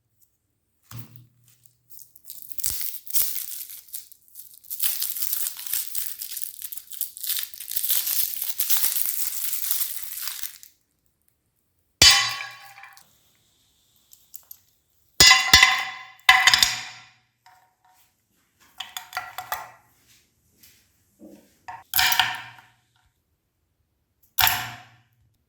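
Crinkling and crunching for about eight seconds, then six separate sharp metallic clinks and clangs, each ringing briefly, as lollipops are handled against a metal meat grinder.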